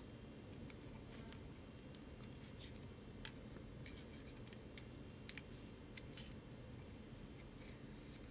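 8 mm wooden double-pointed knitting needles clicking and tapping against each other as stitches are worked off, with faint rubbing of yarn. The clicks are light and irregular, the sharpest about three seconds in and about six seconds in.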